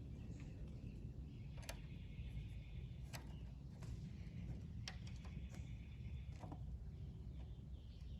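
Scattered light clicks and faint scraping from parts and tools being handled while a motorcycle clip-on handlebar is fitted. Under them runs a low, steady hum.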